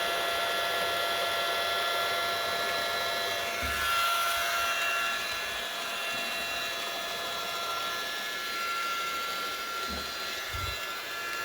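Epoxy pipe brush-coating machine running with a steady high-pitched motor whine while it coats the inside of the pool's suction pipe. A few dull low thumps come about a third of the way in and twice near the end.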